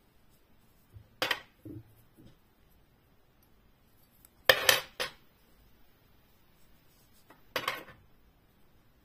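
Metal kiss-lock purse frame clinking and clacking as it is handled, in three short bursts: about a second in, the loudest near the middle, and again near the end.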